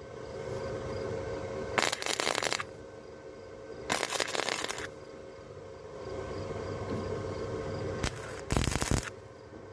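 Harbor Freight 125 flux-core welder's arc crackling in about three short bursts, each under a second, as stitch welds are laid on truck-bed sheet metal. A steady machine hum runs between the bursts.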